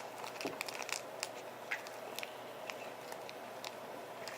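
Scattered light clicks and taps, like small items being handled, over a faint steady hum.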